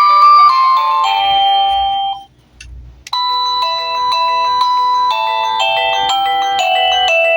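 Daytech wireless doorbell receiver playing an electronic chime melody of plain beeping tones. The tune ends about two seconds in, and after a brief pause and a click another melody begins.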